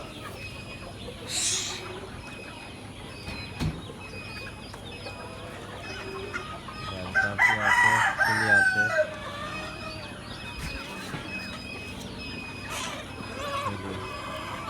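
Hilli chickens clucking, with a rooster crowing once about seven seconds in, the loudest sound here.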